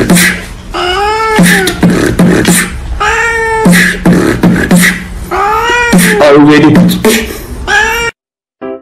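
Beatboxing to a steady beat with a cat's drawn-out meows, each meow rising then falling in pitch, coming in rhythm about once a second. It cuts off abruptly about eight seconds in.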